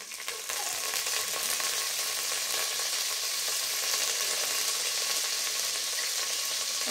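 Fresh curry leaves sizzling in hot oil and ghee in an aluminium pressure cooker: a steady, even hiss that swells up within the first second as the leaves hit the oil.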